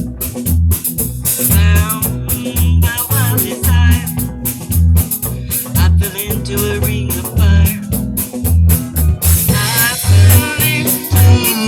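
A band playing a song: a singer over a steady drum beat and bass.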